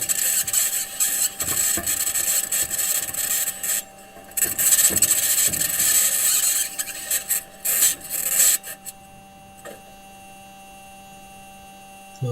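The Perseverance rover's metal wheels grinding and scraping over sandy Martian ground, picked up by its onboard microphone as loud rasping noise in uneven surges with brief lulls. About nine seconds in, the scraping stops and only a quieter steady electrical hum with a fixed tone remains.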